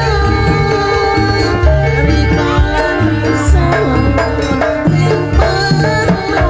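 Traditional East Javanese gandrung Banyuwangi music. Heavy hand-drum (kendang) strokes keep a driving rhythm under sliding, wavering melody lines.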